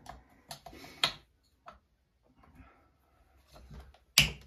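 Sharp clicks and knocks of a hand tool and parts being handled on a partly dismantled Stihl MS461 chainsaw, about five scattered strikes with quiet between them, the loudest near the end.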